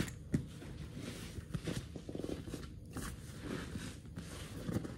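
A canvas backpack being handled: fabric rustling with scattered small clicks, a sharper click about a third of a second in and a quick run of ticks a little past two seconds.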